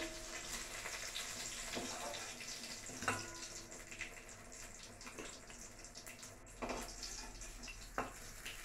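Rohu fish pieces sizzling in hot oil in a kadai while a steel spatula lifts them out one by one. A steady sizzle, with about six sharp clicks of the spatula against the pan and plate.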